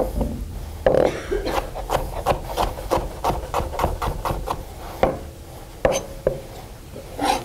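Chef's knife dicing a Roma tomato on a plastic cutting board: quick repeated knocks of the blade on the board, several a second, thinning to a few scattered knocks in the last couple of seconds.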